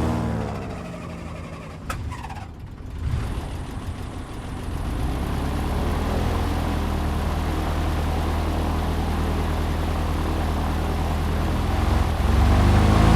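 Airboat's 1947 Lycoming six-cylinder aircraft engine and propeller winding down, then running at a steady low rumble, and revving up again near the end.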